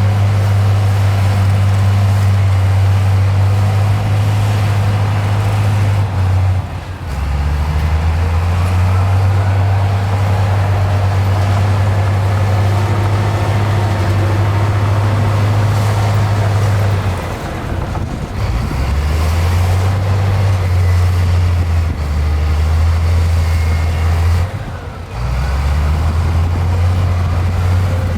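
Heavy diesel earthmoving machinery running: a loud, low engine drone whose pitch shifts up and down in steps as the load changes, with three short dips in level.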